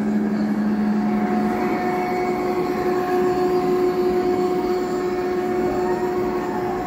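Model electric locomotive running along a layout's track with a steady hum and whine over a running noise; the tone steps up in pitch about a second and a half in.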